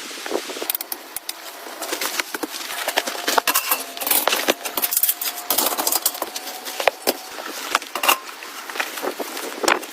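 Irregular clicking and clinking of small hard objects being handled, with a few brief metallic rings.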